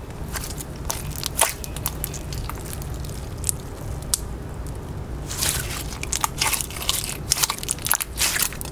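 Clear slime being squished and stretched by hand, giving sticky clicks and small crackling pops, sparse at first and coming thicker in the second half.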